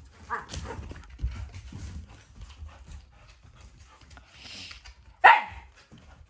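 A dog barks once, sharp and loud, about five seconds in, after a shorter, softer yip near the start; small knocks and rustling in between.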